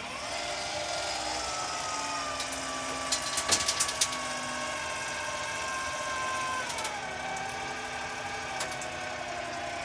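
A power tool's motor starts abruptly and runs with a steady whine over a rush of air. There is a cluster of sharp clicks about three to four seconds in, and the pitch sags about seven seconds in.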